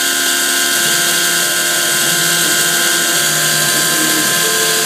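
G0704 milling machine under CNC control, its spindle running at 4,500 RPM with a steady whine while a 1/16-inch end mill cuts a profile in Delrin. Lower tones come and go as the axis motors move the table.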